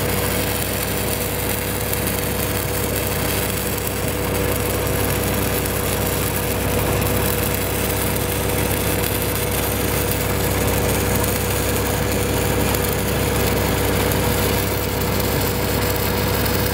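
Stick-welding arc crackling steadily as a 6010 rod runs a downhill root pass on steel pipe, over the steady running of an engine-driven welding machine.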